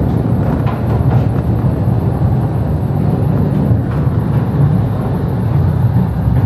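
Small Mail Rail ride train running through its narrow tunnel: a steady low rumble of wheels on rail, with a few faint clicks about a second in and near four seconds.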